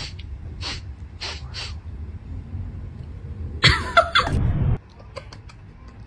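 A cat sniffing in a few short breaths, then a loud harsh cat cry lasting about a second, just past the middle.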